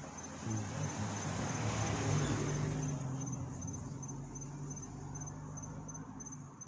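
Crickets chirping in a steady, even pulse of about three chirps a second. Under them a low rumble swells about half a second in and fades toward the end.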